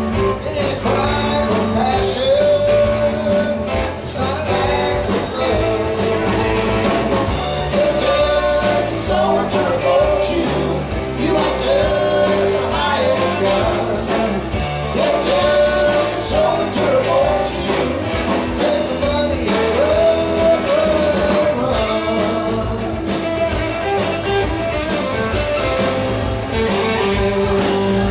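Live rock band playing: electric guitar, electric bass and drum kit at a steady beat, with a man singing lead.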